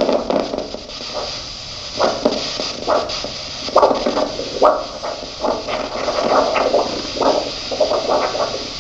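Handheld LifeDop vascular Doppler picking up the dorsalis pedis artery on top of the foot. Its speaker gives a regular whooshing pulse beat about every 0.8 seconds, which becomes clear about two seconds in once the probe finds the artery.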